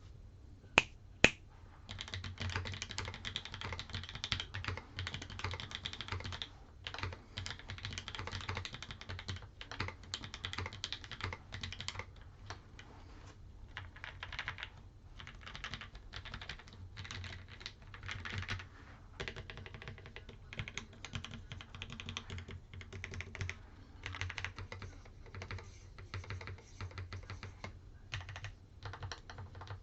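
Typing on a Classy TKL mechanical keyboard with lubed Kailh BOX Cream linear switches on a POM plate with foam and GMK Nautilus keycaps: a quick run of key clacks in bursts with short pauses. Two sharp, louder clicks come about a second in, before the typing starts.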